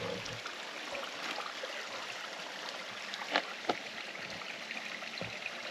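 Stream water running steadily, a constant rushing wash, with a couple of short sharp taps a little past the middle.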